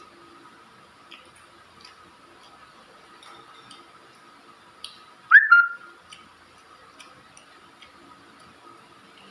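A short, loud, whistling slurp of soup broth off a spoon about five seconds in, among faint clinks of a spoon against a bowl.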